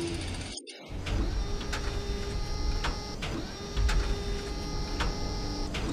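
CNC machine running: a steady mechanical whine of its drive motors with irregular sharp clicks. The sound cuts out briefly about half a second in.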